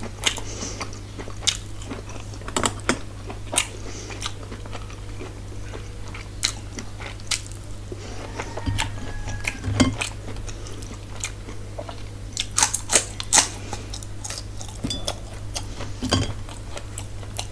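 Close-miked eating sounds: a person chewing and biting food, with irregular sharp crunches and mouth clicks, a cluster of them about 12 to 14 seconds in. A steady low hum runs underneath.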